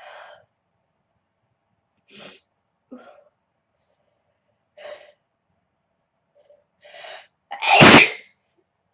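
A young woman sneezing: several short, faint breathy sounds, then one loud sneeze near the end.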